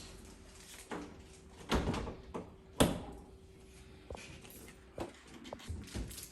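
A series of separate knocks and clunks of doors or panels being handled, the loudest two close together about two and three seconds in, over a faint steady hum.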